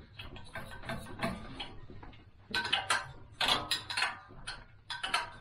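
Irregular light metallic clinking and clicking of exhaust nuts and hand tools being handled while a scooter's exhaust is taken off. The clinks come thicker and louder about halfway through.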